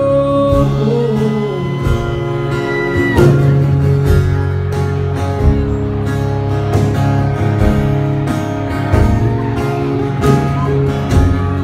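Live country band playing an instrumental passage: acoustic guitars strummed over a steady beat of drum hits. The singer's held last note glides and ends about three seconds in.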